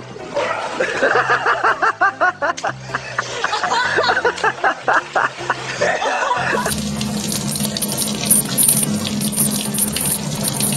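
Music with a voice in short, rapid pulsing bursts for about six seconds, then a sudden change to water running steadily from a tap.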